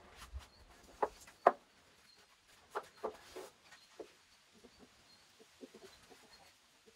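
Chickens clucking: two loud, sharp clucks in the first two seconds, a few more around the middle, then softer clucks.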